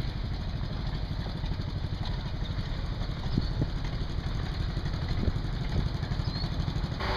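An engine idling steadily with a low, rapid, even firing pulse.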